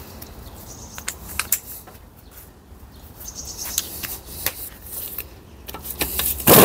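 Scattered sharp clicks and light knocks of tools and metal gearbox parts being handled, with a louder noisy burst near the end.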